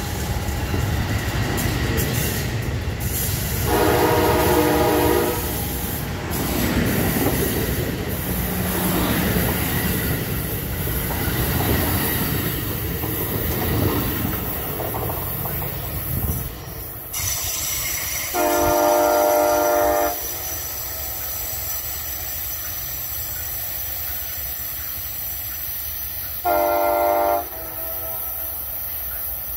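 Amtrak Pacific Surfliner bilevel passenger cars rolling past close by, with steady wheel and rail noise that drops off sharply about seventeen seconds in. A multi-tone train horn sounds three times: a blast about four seconds in, a slightly longer one about eighteen seconds in, and a short one near the end.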